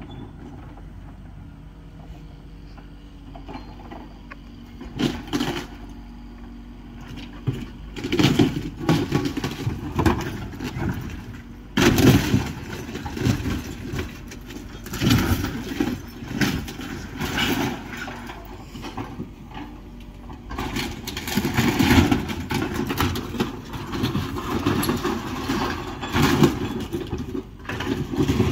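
Compact excavator running while it tears down a sheet-metal building. Its engine runs steadily, and from about five seconds in come irregular crashes and crunching of metal and wood debris, growing busier and louder through the rest.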